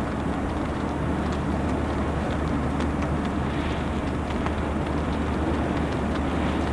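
Heavy rain falling steadily, with scattered sharp drop ticks and a steady low hum underneath.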